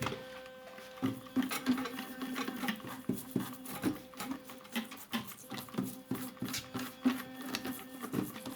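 Electric toothbrush buzzing steadily as it scrubs a typewriter's metal typebars, with irregular scratchy brushing strokes and small clicks against the metal.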